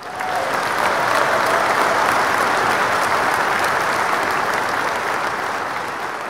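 Audience applause, a dense steady clapping that slowly fades in the last couple of seconds.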